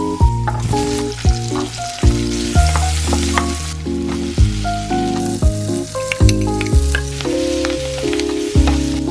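Food sizzling as it is stir-fried in hot oil in a pan, a steady hiss throughout, with a light cheerful background music melody playing over it.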